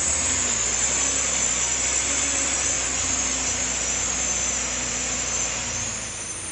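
Diesel engine of a loaded truck running steadily, with a constant high hiss laid over it.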